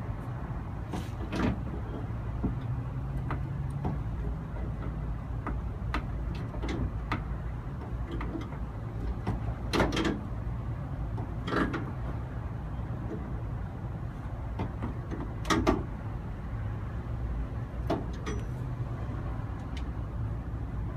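Scattered knocks and clunks, a handful of sharp ones spread irregularly, over a steady low rumble.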